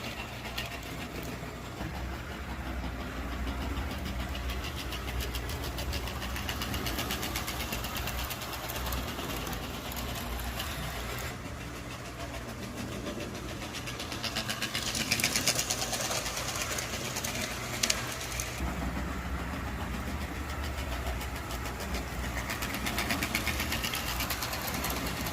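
HO scale model train running on the layout: a fast, even clicking over a steady low hum, with a brief hiss about two-thirds of the way through.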